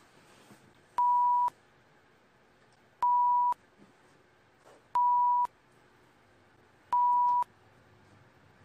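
Electronic beeping: a steady single-pitched beep about half a second long, repeating evenly every two seconds, four times.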